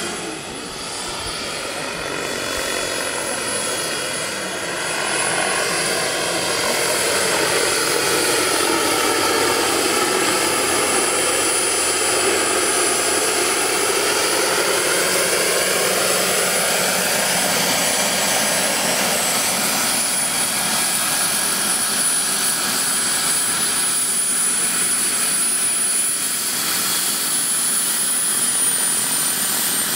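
Radio-controlled scale Lama helicopter with a model turbine: a steady high turbine whine over the rotor noise, growing louder after a few seconds as the helicopter comes down closer. Near the end the whine falls in pitch as the turbine winds down once the model is on the ground.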